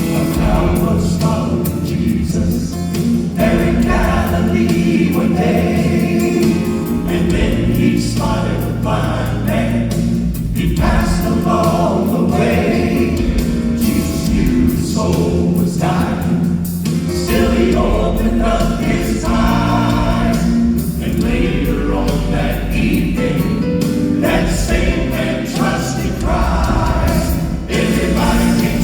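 Southern gospel vocal group singing in harmony with instrumental accompaniment.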